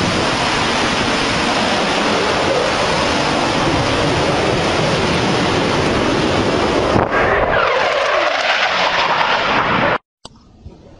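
Fighter jet making a low pass: a loud, steady jet roar whose pitch sweeps downward about seven seconds in. It cuts off abruptly near the end, leaving only faint wind.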